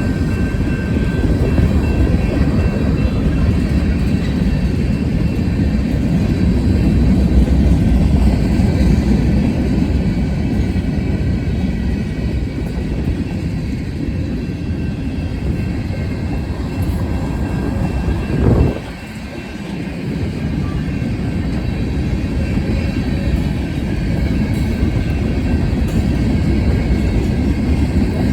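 CSX freight train rolling past, a steady low rumble of wheels on rail with faint high squeals above it. About eighteen seconds in there is a short loud burst, then the rumble drops briefly before it builds again.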